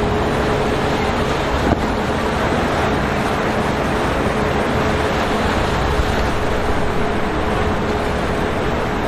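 Steady loud rush of engine noise mixed with water, with a constant hum running through it.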